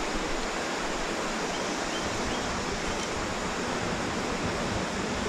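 Shallow creek water running over rocks: a steady, even rush of flowing water.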